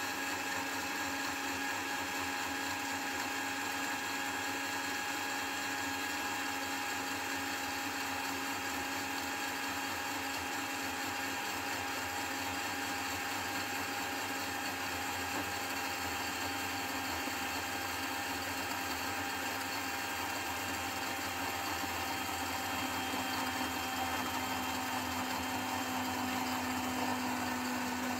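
Electric blender running steadily, emulsifying milk, vinegar and cooking oil into eggless mayonnaise. The motor hum drops slightly in pitch and gets a little louder about three quarters of the way through.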